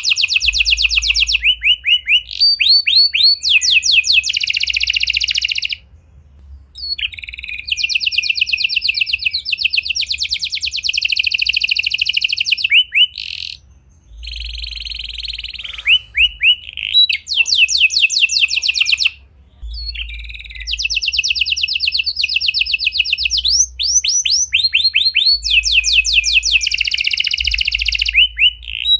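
Domestic canary singing long phrases of rapid, high rolling trills and repeated notes, broken by three short pauses.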